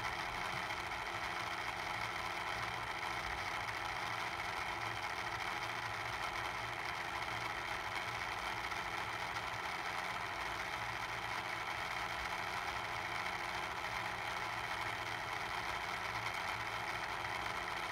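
Tornado lamp's motor running steadily, making a rumbling noise as it spins the water into a vortex.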